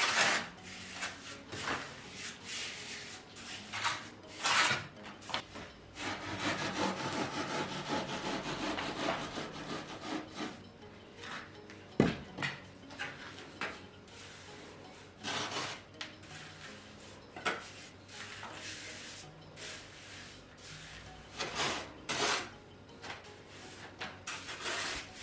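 Irregular rubbing and scraping strokes of hand work on a hard surface, denser and more continuous for a few seconds near the middle, with one sharp knock about twelve seconds in.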